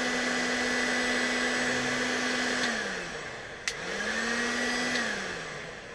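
A 2000-watt electric heat gun blowing hot air onto heat-shrink sleeving over motorbike wiring, its fan motor running with a steady whine and rush of air. About two and a half seconds in the fan winds down; after a click it spins back up, then winds down again near the end.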